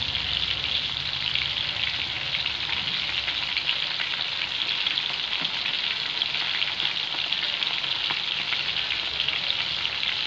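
Coated prawns deep-frying in hot oil in a wok: a steady sizzle with fine crackling. A slotted metal spoon is moved through the oil among the pieces.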